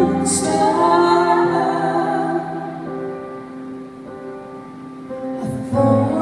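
Live ballad performance: a woman singing long held notes into a microphone over keyboard accompaniment. The music drops quieter about halfway through and swells back up near the end.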